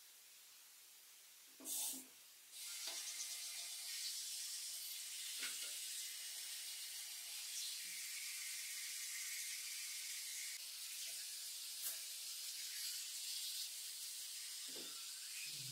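Teeth being brushed at a bathroom sink: a steady hiss of brushing and water that starts just after a short click about two seconds in.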